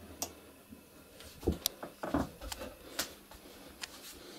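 A few scattered light clicks and knocks of metal parts being handled as the drill press's tilting table is turned by hand.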